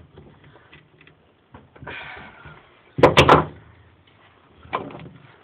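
Workbench handling noises: a brief scrape, then a loud quick cluster of sharp knocks about three seconds in, and another knock near the end.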